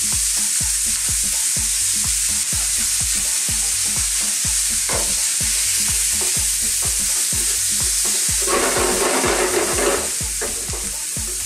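Marinade, onions, olives and sun-dried tomatoes sizzling in a hot ridged grill pan, stirred with a wooden spatula that knocks and scrapes against the pan in quick repeated strokes. The sizzling swells louder for over a second about eight and a half seconds in.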